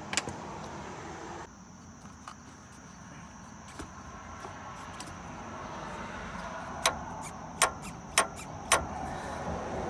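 GMC 6.5L turbo-diesel V8 running with sharp clacks from a loose crankshaft pulley slapping around. Four loud clacks come near the end, about 0.6 s apart.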